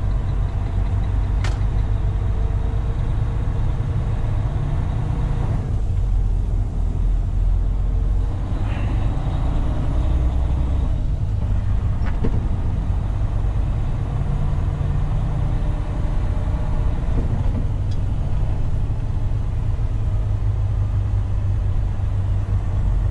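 Semi truck's diesel engine heard from inside the cab while driving: a steady low drone whose pitch shifts a few times as the truck pulls away and changes speed.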